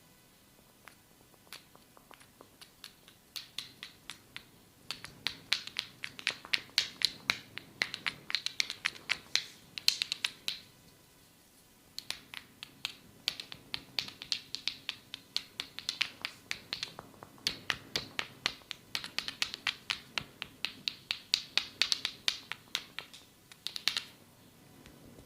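Head-massage percussion: fast runs of sharp snapping clicks, several a second, in two long bursts with a pause of about a second and a half midway.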